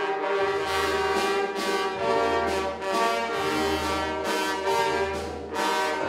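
Brass band playing, trumpets and trombones in chords over a low bass line.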